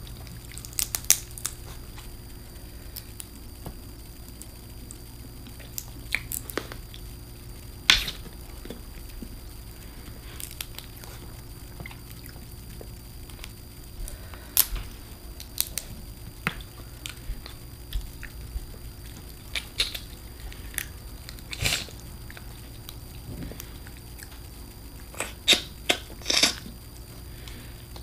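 Eating shellfish up close: scattered sharp clicks and crackles of shrimp, crawfish and crab shells being cracked and peeled, with chewing, over a steady low hum.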